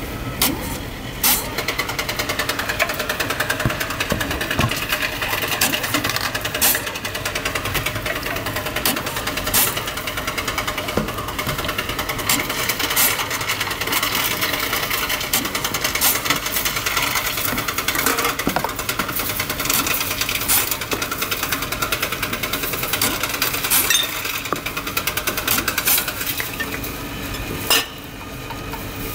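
Reverse vending machine taking in plastic bottles: its motor and rollers run with a steady, rapid mechanical rattle, with scattered sharp knocks. The rattle quietens near the end.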